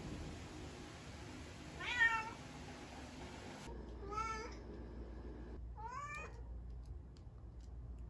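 A domestic cat meowing three times, short calls about two seconds apart, the first the loudest.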